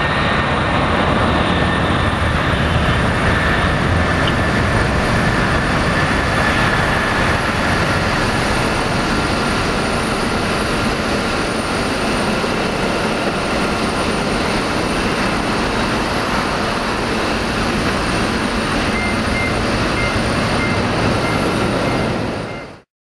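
Jet engines of a Boeing 767-300 airliner running: a steady roar with a faint high whine. It cuts off suddenly near the end.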